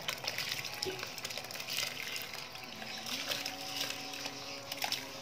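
Sella (parboiled) rice being poured from a bowl into a pot of boiling water: splashing and bubbling water with many small ticks as the grains drop in.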